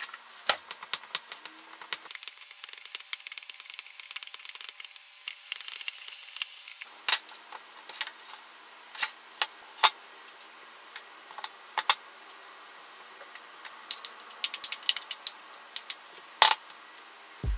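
Wooden spatula scraping and knocking against a glass mixing bowl as a mashed mixture is scooped out into a baking dish, making irregular clicks and clinks.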